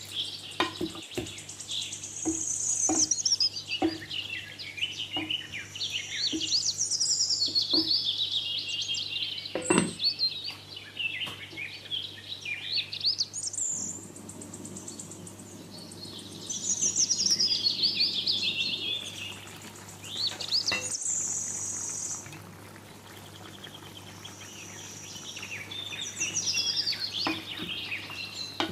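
Small birds chirping and trilling in quick, high phrases over the cooking. In the first half there are light taps from stirring in the pan. About halfway through the taps stop and a low, steady hiss from the covered pan simmering comes in for a while.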